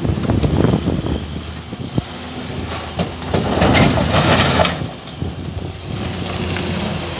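Heavy tow truck's diesel engine running steadily while it drags a derelict bus on a tow boom, with clanks and a louder rush of noise for about a second and a half around the middle.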